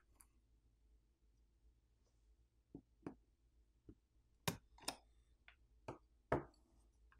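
Faint, light clicks and taps of small repair tools against a smartphone's internal parts during disassembly. There are about eight of them in the second half, the loudest a little past halfway and again near the end.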